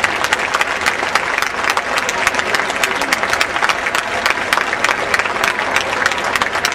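Ringside audience applauding steadily, many hands clapping together.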